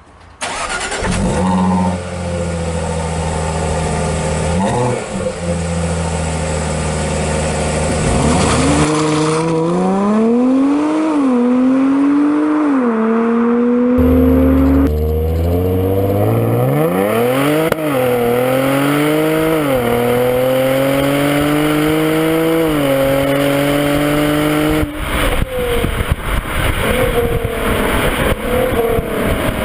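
Jaguar XE's supercharged V6 idling steadily, with a short rev blip about five seconds in. It then accelerates hard through several upshifts, its note rising and dropping back at each gear change, and changes abruptly between takes. In the last few seconds it runs on with a rougher, choppier sound.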